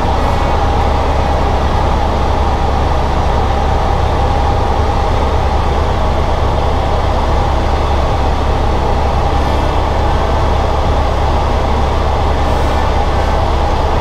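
Helicopter in steady cruise heard from inside the cabin: a constant low drone from the rotor and engine, with a steady higher tone above it.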